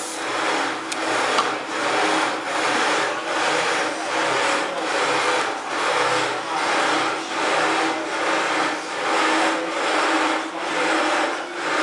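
A machine running with a steady whirring hum that swells and fades evenly, about three pulses every two seconds, with a couple of sharp clicks about a second in.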